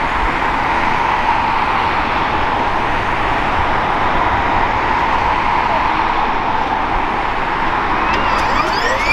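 Steady traffic noise, then near the end a rising whine as a Pratt & Whitney PW206B3 turboshaft engine of an Airbus H135 helicopter begins its start-up, spooling up.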